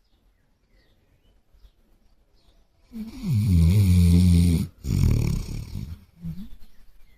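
Sleeping basset hound snoring: after about three seconds of quiet, one long, loud, pitched snore, then after a brief break a rougher breath, and a short faint one near the end.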